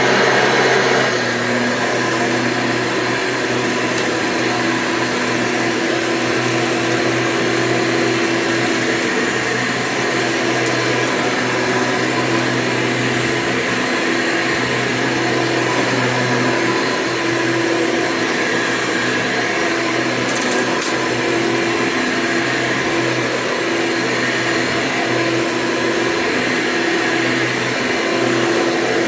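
Hoover Convertible U5063-930 upright vacuum cleaner, its motor fitted with a 20-bladed fan, running steadily with a motor whine and airflow hiss. It dips slightly in level about a second in.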